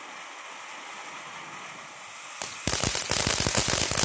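TNT Lemon Lime fountain firework hissing steadily as it sprays sparks, then about two and a half seconds in it switches to loud, dense crackling, many small pops in quick succession.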